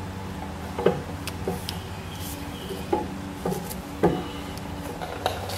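Scattered light metallic clicks and knocks, irregularly spaced about once every half second to a second, from a hex tool working the 8 mm Allen bolt on a motorcycle crash bar mount, over a steady low hum.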